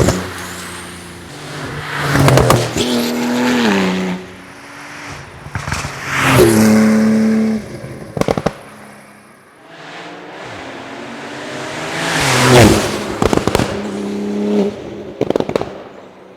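TECHART GTstreet R Flyweight's twin-turbo flat-six engine and exhaust, revving up hard in several bursts with the pitch stepping and sliding down after each, and crackling pops from the exhaust as it comes off the throttle.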